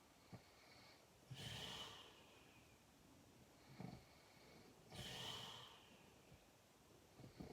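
A person snoring in sleep: a long, rasping snoring breath about every three and a half seconds, with a shorter, lower snort between each pair.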